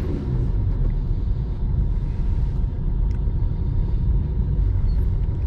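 Car engine and road noise heard inside the cabin: a steady low rumble as the car accelerates in second gear.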